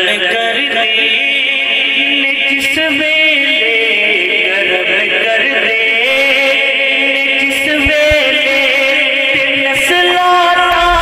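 Man singing a Punjabi naat into a microphone, drawing out long, wavering melodic notes without clear words.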